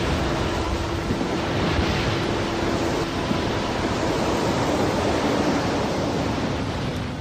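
Sound effect of a huge ocean wave crashing in: a loud, steady rushing wash of water noise with a faint held tone beneath it, beginning to fade near the end.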